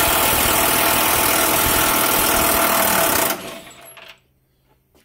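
Cordless impact wrench running continuously as it backs out a bolt from the lower control arm mounting bracket under a Chevy Trailblazer. It stops sharply a little over three seconds in, once the bolt is free.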